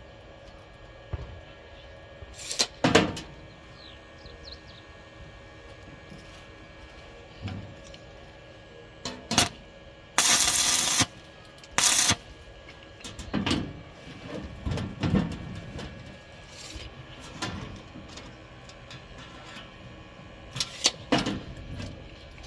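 Steel pieces being handled while a steel box is made: scattered sharp metal clanks and knocks, with one harsh noisy burst lasting about a second near the middle, over a steady electrical hum.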